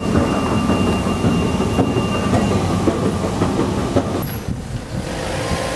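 Underground train noise: rumbling and rattling with clicks and a thin, steady wheel squeal. About four seconds in it cuts off abruptly to quieter street noise.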